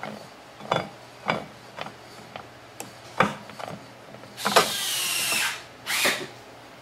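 Snowmobile secondary-clutch belt-change tool being turned out by hand, letting the clutch sheaves close back onto a newly fitted drive belt. It makes a series of light metallic clicks and knocks, then about a second of rasping a little past the middle and a shorter rasp near the end.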